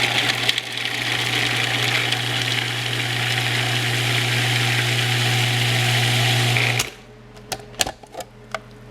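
Small Cuisinart food processor running steadily as it grinds celery, cutting off suddenly about seven seconds in. A few light clicks follow.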